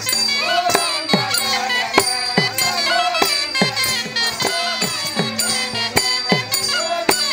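Kattaikkuttu theatre music: a hand drum beats about twice a second, each bass stroke sliding down in pitch, over a steady drone, with small cymbals and ankle bells jingling and a wavering melodic line above.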